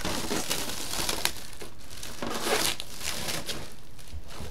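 Thin clear plastic bag crinkling and rustling as it is pulled off by hand, in irregular crackly bursts.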